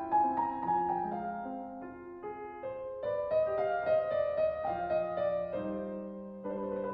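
Slow, calm instrumental piano music, with held notes moving gently from one to the next.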